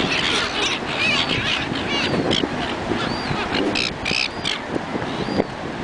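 A flock of silver gulls calling, with many short overlapping calls that grow sparser after about four seconds, over a steady rush of wind and surf.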